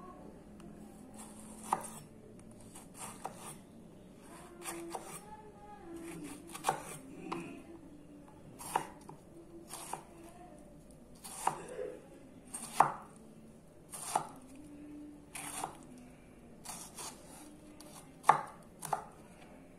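Sakai Takayuki 33-layer Damascus gyuto knife dicing a tomato, the blade knocking down onto a wooden cutting board in sharp, uneven strokes about once a second.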